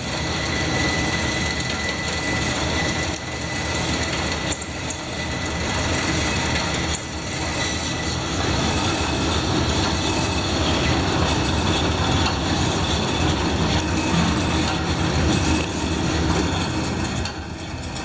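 Steady, loud mechanical running noise with a thin constant high whine, fading near the end.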